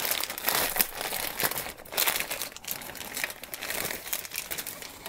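Plastic bag around a model kit's parts crinkling and rustling as it is handled and opened, a dense run of crackles that thins out near the end.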